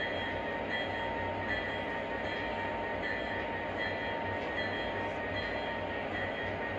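Toy train running on a model railroad layout: a steady rolling rumble with a faint repeating pattern about every three-quarters of a second.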